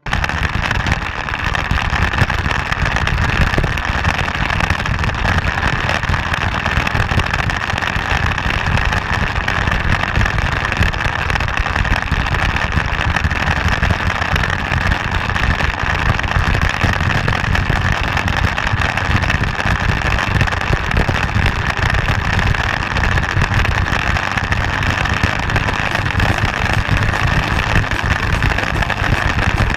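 Motorcycle running steadily at road speed, heard from on the bike: a constant engine drone mixed with wind rushing over the microphone.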